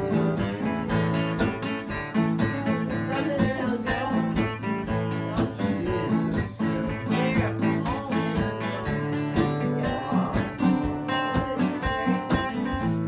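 Acoustic guitars strumming and picking a tune together, with a steel guitar played flat on the lap.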